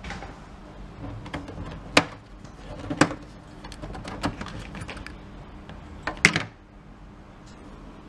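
Hands handling a printer cable plug and hard plastic: a few sharp clicks and knocks about a second apart, the loudest about six seconds in, over a faint steady hum.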